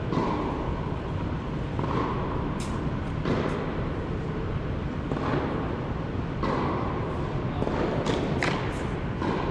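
Tennis ball struck by rackets in a reverberant indoor court hall. There are a few sharp hits, one a few seconds in and a quick run of three near the end, over a steady background noise.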